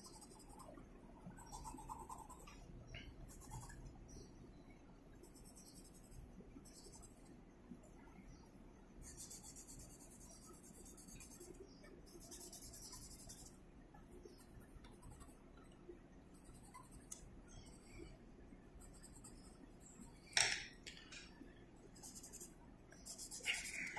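Coloured pencils shading on paper: faint, scratchy strokes coming in spells, with one short knock about twenty seconds in.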